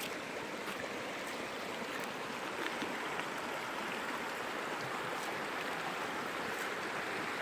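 A mountain brook rushing over rocks: a steady, even rush of flowing water.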